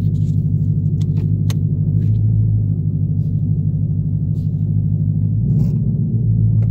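Steady low drone of a 2018 Ford Mustang GT's 5.0-litre V8, heard inside the cabin from the back seat while moving. About a second in come two short sharp creaks half a second apart: the passenger-rear creak that the owner traces to the taillight as the body flexes.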